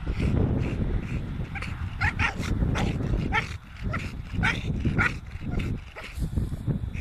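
American bully dog barking in short, high yips, repeated irregularly over a steady low rumble.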